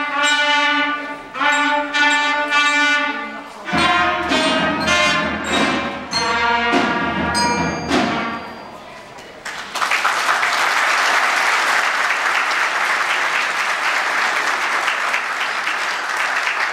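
School concert band of flutes, clarinets, trumpet and bells playing the closing bars of a piece, with held chords, stopping about two-thirds of the way through. Then the audience applauds steadily.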